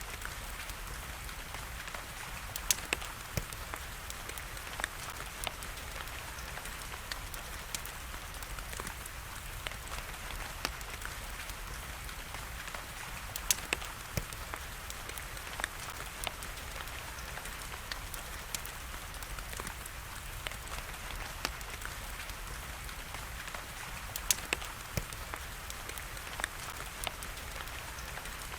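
Steady hiss of falling rain mixed with a crackling wood fire: many small crackles and a few sharp, louder pops, about three seconds in, around the middle and near the end.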